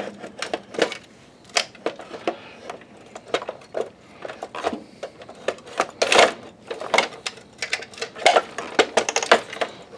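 Irregular clicks and knocks of plastic and metal parts as the optic block of a Sony VPL-HW45ES projector is worked down into its chassis and lined up on its locating pin, several a second, some with a short ring.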